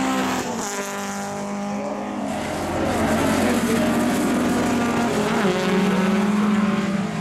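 Engines of historic rallycross cars, among them a Mk1 Ford Escort and Volkswagen Beetles, racing on track, their pitch rising and falling with throttle and gear changes.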